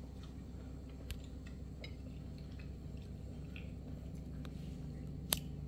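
Faint eating sounds: chewing and small clicks of a fork, with one sharper click about five seconds in, over a steady low room hum.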